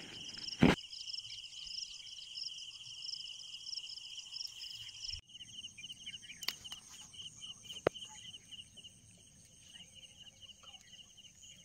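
Crickets chirping in a steady, high-pitched, rapidly pulsing chorus, with a few sharp clicks. The chorus shifts abruptly about five seconds in.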